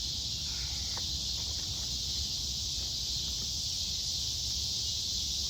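Steady, continuous chorus of insects, high-pitched, with a low rumble underneath and a faint click about a second in.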